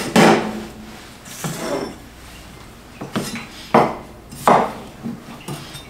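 Kitchen knife knocking against a cutting board in a handful of separate, irregularly spaced strikes as the ends of a cucumber are cut off.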